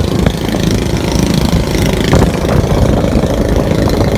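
A passenger boat's engine running steadily as the boat travels across the water, with a loud low rumble.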